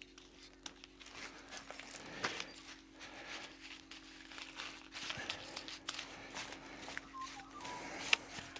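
Faint scattered clicks, taps and short scrapes of a paintbrush and primer being handled to paint a raw timber cut, over a faint steady hum.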